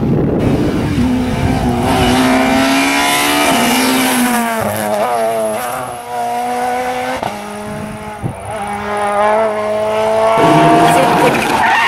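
Rally car engine pulling hard through the gears, its note climbing and then dropping back at each shift, several times.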